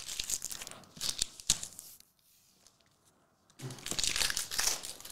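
Foil wrapper of a Select soccer card pack crinkling and tearing as it is opened, in two spells of rustling with a pause of about a second and a half between them.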